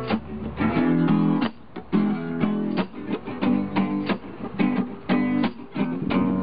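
Acoustic guitar strumming chords in a steady, rhythmic pattern: the instrumental intro of a song, before the singing comes in.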